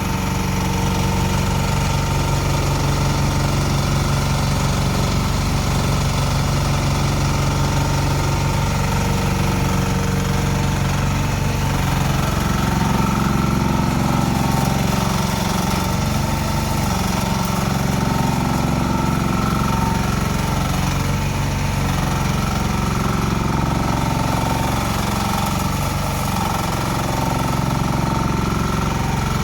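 The engine of a 1-ton mini excavator runs steadily. About twelve seconds in its note changes and turns rougher, and it stays that way.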